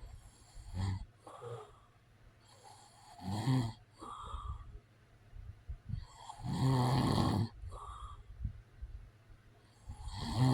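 A man snoring: four buzzing snores about every three seconds, each followed by a short, softer puff of breath. The longest and loudest snore comes about halfway through, and another starts near the end.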